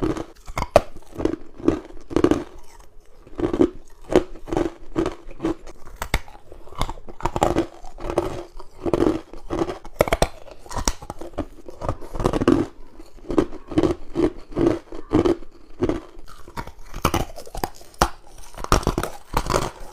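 Close-miked crunching of frozen humidifier frost and ice: rapid crackling bites and chewing, several crunches a second.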